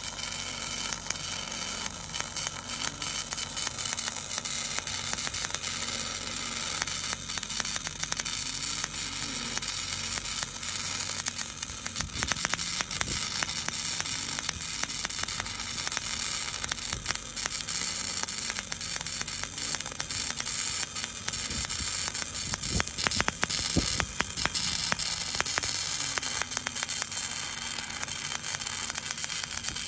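Wire-feed welding arc burning steadily: a continuous hissing crackle with many brief dips as the wire shorts and re-strikes.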